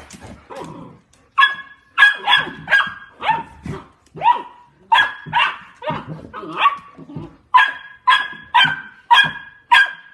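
A dog barking repeatedly in short, sharp, high-pitched barks, about two a second, starting about a second and a half in after some softer low sounds.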